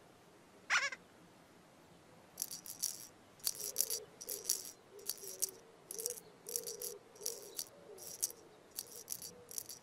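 A shaker rattling in short, uneven shakes, about one or two a second, over a faint wavering low tone: a children's cartoon sound effect. Before the shaking starts, a quick falling whistle-like glide sounds about a second in.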